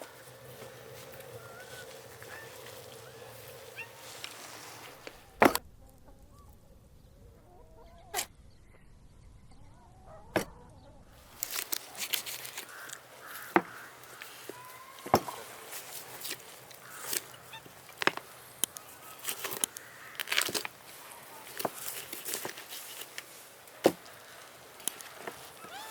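Domestic fowl clucking in the background, with a dozen or so sharp, irregularly spaced knocks and clicks.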